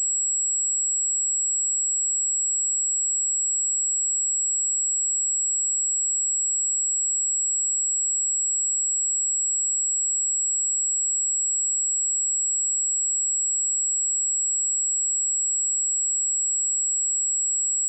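A steady, high-pitched pure sine-wave test tone at 7721 Hz, held at one pitch and level.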